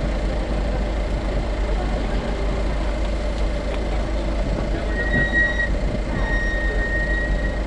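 Abarth 124 Spider's turbocharged 1.4-litre four-cylinder idling steadily while the car stands waiting. Two high electronic beeps sound about five and six seconds in, the second one longer.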